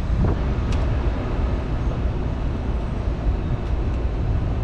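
Steady low rumble of a large rooftop make-up air unit's blower running, with a light click about a second in.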